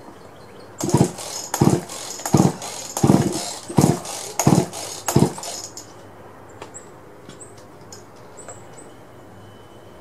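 Poulan two-stroke chainsaw being cranked with its recoil starter cord, about seven quick pulls in a row, each a whirring rasp of rope and turning engine, during a compression test with a gauge in the spark plug hole. The gauge shows only about 50, low compression.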